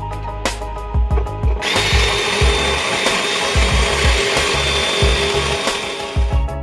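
A power tool starts about two seconds in and runs steadily for about five seconds, over background music with a steady beat.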